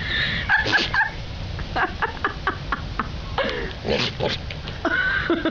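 An animal calling several times: short cries, a quick run of brief calls about two seconds in, and a longer call that bends in pitch around four seconds in.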